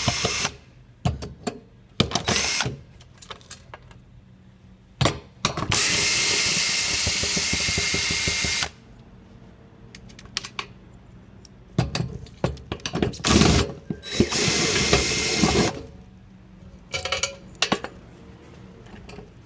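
Cordless power screwdriver backing bolts out of a hydraulic bed's frame. It runs in steady whirring spurts, the longest about 6 s in lasting nearly three seconds and another a little after 14 s. Sharp clicks and short knocks come in between.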